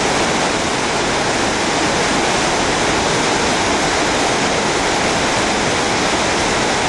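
Floodwater rushing with a loud, steady, unbroken roar.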